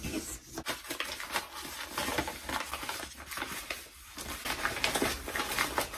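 Someone rummaging for and picking up small hard objects by hand, the clay phone models: a busy stream of small clicks, taps and rustling.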